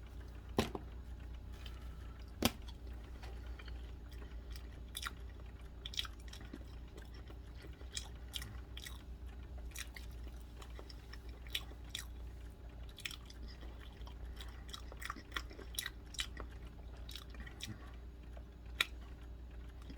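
A person eating a banana fast: soft biting and chewing with scattered small clicks from the mouth, over a faint low hum.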